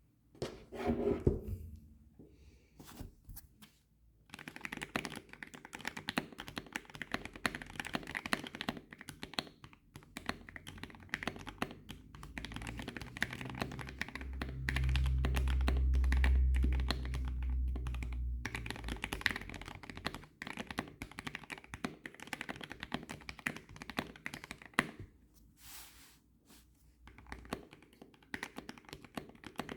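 Typing on a mechanical keyboard with lubed switches and PBT keycaps, a fast run of deep keystrokes. A low rumble sits under the typing for a few seconds around the middle, and the strokes thin out near the end.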